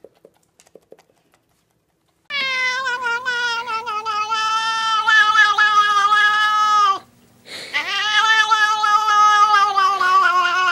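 Cat yowling: two long, drawn-out cries starting about two seconds in, the first lasting about four and a half seconds and falling away at its end, the second about three seconds, with a short break between.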